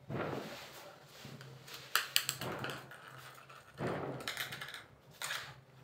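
A small plastic bangle knocked and slid about on a concrete floor by a cat's paw: short scraping rattles, with two sharp clicks about two seconds in.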